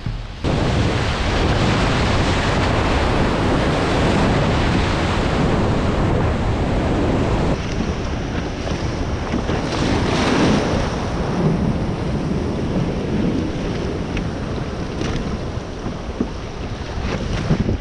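Broken surf foaming and rushing around a sailing kayak's hull and outrigger floats, mixed with heavy wind buffeting on the microphone. It comes in abruptly about half a second in and stays loud and even.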